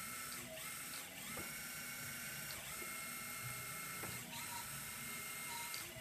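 Small electric hydraulic pump of an RC scale bulldozer running with a steady whine while its servo-driven valve works the rear ripper; the whine shifts several times as the pump speeds up and slows with the stick, with a few faint clicks.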